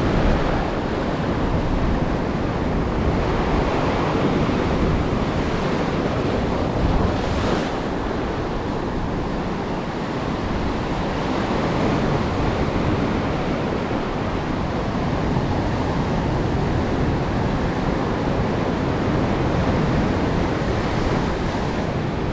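Ocean surf breaking and washing in over sand and low rocks, a steady rush of foaming water.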